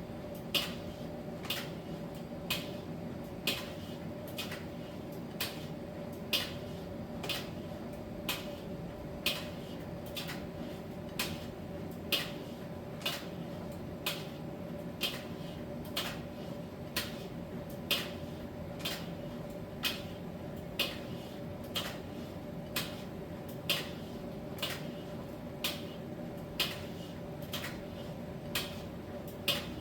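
Miele T1 heat-pump tumble dryer running in its drying phase: a steady hum from the machine, with a light click about once a second in time with the turning drum.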